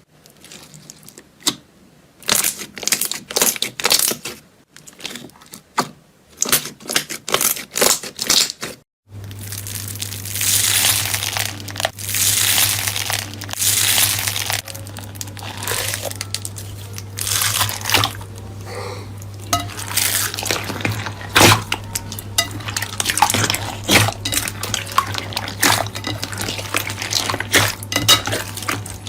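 Slime being pressed and squished by hand, with many sharp clicks and crackles. About nine seconds in the sound cuts to another clip, with denser crackling over a steady low hum.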